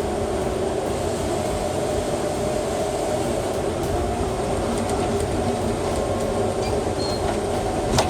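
Timber Pro 725 harvester's engine and hydraulics running steadily under load, with a single sharp knock near the end.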